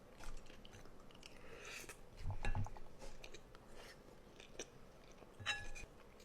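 Close-miked chewing of food: wet mouth clicks and bites, with a dull knock about two and a half seconds in and a short ringing clink of a utensil against a dish near the end.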